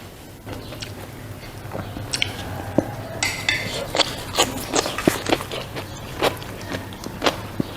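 Close-miked eating: a quick run of sharp crunching and clicking bites and chews that starts about two seconds in, with a short crackling burst about three seconds in.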